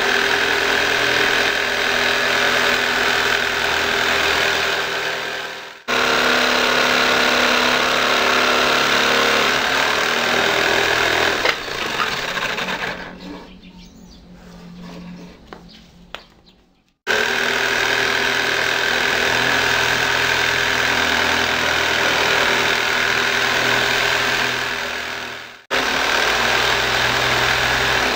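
Power saw mounted under a wooden table running with a steady whine as a wooden board is cut on its blade. The motor stops and restarts several times, with a quieter spell of a few seconds near the middle.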